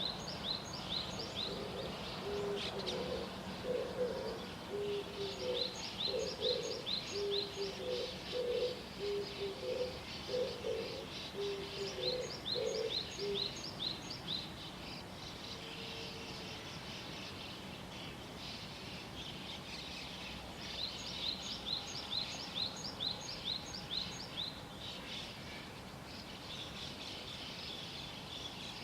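Wild birds calling at dawn: small songbirds give rapid runs of high, quick chirps that pause for a few seconds midway. Over the first half, a low, rhythmic hooting call alternates between two pitches.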